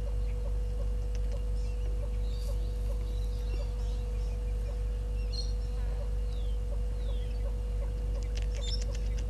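Faint scattered bird calls: high chirps, a couple of short falling whistles, and a quick run of sharp ticks near the end. All of it sits over a steady low hum and a constant thin tone.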